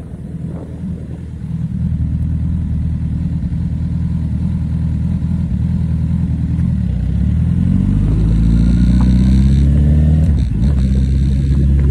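Honda CB1000R's inline-four engine under way, running at low revs, then accelerating with a rising pitch about seven seconds in. It breaks off briefly near the end and picks up again at a steady, louder pitch.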